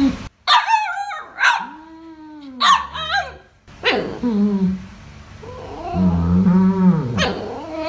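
Dogs 'talking': a run of short yowling yips that rise and fall in pitch, then a longer, lower, wavering howl-like grumble from about four seconds in, the vocal back-and-forth of dogs at play.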